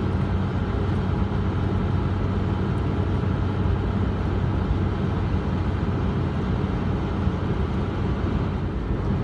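Ford F-350 pickup driving on a paved road, heard from inside the cab: a steady low engine hum with road noise.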